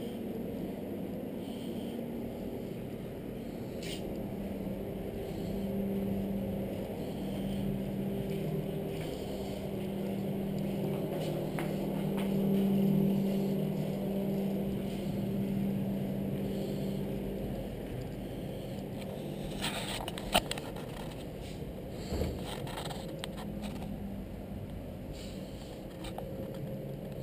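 Steady low mechanical hum that swells and fades, with a few sharp clicks and knocks about three-quarters of the way through.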